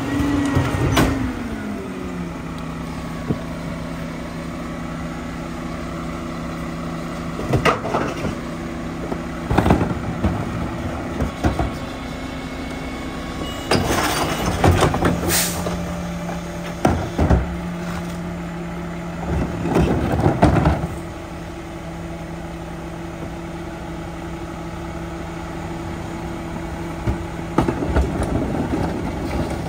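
Mack LEU garbage truck's diesel engine idling as the truck stops, its pitch falling at the start with a short hiss about a second in. The Leach rear loader's cart tipper then lifts and empties a wheeled plastic bin into the hopper, with knocks and clatters over the steady engine note.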